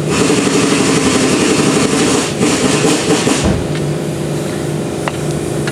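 Steady mechanical drone of machinery running in the background, with a low hum that shifts about three and a half seconds in and a light click or two later on.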